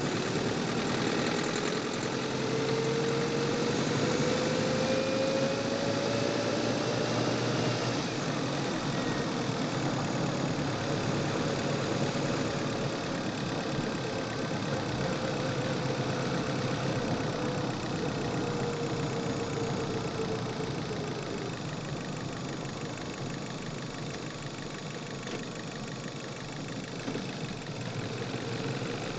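Chevrolet car engine heard from the engine bay, pulling under acceleration. Its pitch rises over the first several seconds, holds, then eases off about two-thirds of the way through. It knocks when accelerating, which the owner takes for fuel knock.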